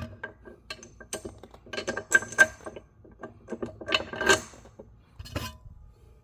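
Metal clinks and taps of a steel bolt being worked through the lined-up holes of a mobility scooter's seat post, a few of them ringing briefly, in scattered clusters about two and four seconds in.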